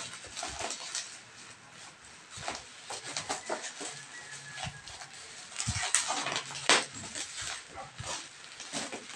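Packaging being unwrapped by hand, crinkling and clicking, with a couple of sharper, louder crackles in the second half.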